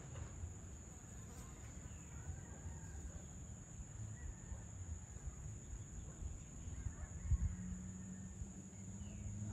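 Insects trilling steadily and high-pitched over a low outdoor rumble, with faint bird chirps now and then. A low steady hum comes in about three-quarters of the way through.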